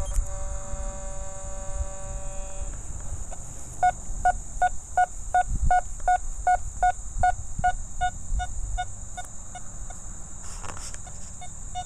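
Nokta Fors Core metal detector's audio: a steady tone for the first two to three seconds, then a run of short, even beeps at one pitch, about three a second.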